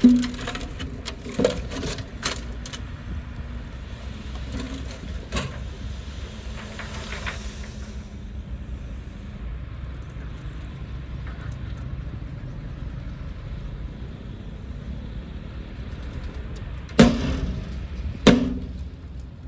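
Heavy diesel earthmoving machine running steadily at low pitch, with scattered knocks and cracks in the first few seconds and two loud bangs near the end, about a second apart.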